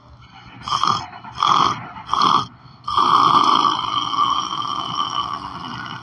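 A man snoring: three short snores about a second apart, then one long, drawn-out snore from about three seconds in.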